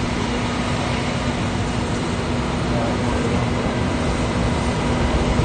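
A pump engine running at a steady pitch, its constant hum under a loud, even rushing hiss from a firefighting hose stream spraying water.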